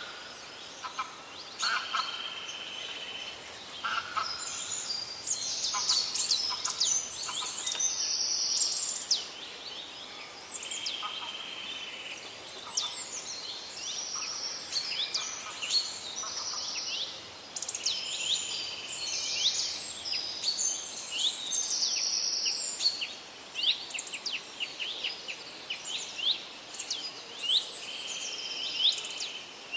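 Several birds chirping and singing at once, with quick downward-sweeping chirps, trills and short buzzy notes overlapping. The calls are sparse at first and grow dense about four seconds in.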